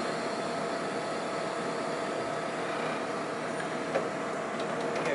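Forklift running steadily, a mechanical hum with a faint steady whine, as it holds and lowers a heavy milling machine; one small knock about four seconds in.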